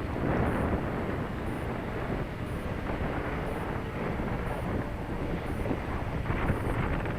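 Strong wind buffeting the microphone, a steady rumbling roar.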